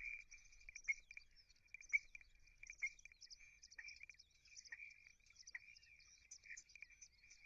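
Many birds chirping and chattering at once in a steady, faint chorus, with a few louder sharp calls about one, two and three seconds in.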